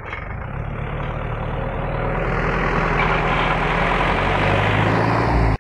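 Heavy vehicle engine running with a deep steady hum, growing steadily louder over a few seconds, then cutting off suddenly at the end.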